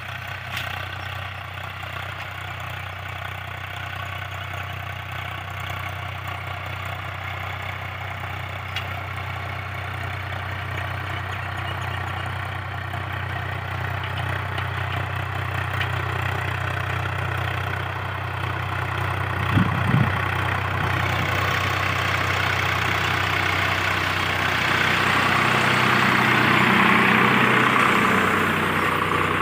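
Tractor engine running steadily, slowly growing louder, with two short thumps a little after the middle. A wider rushing, rattling noise then joins and swells toward the end.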